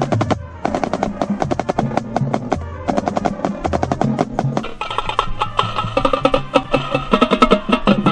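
Marching band percussion section playing: rapid snare and tenor drum strokes over pitched bass drum notes. About five seconds in, sustained pitched notes from other instruments join the drumming.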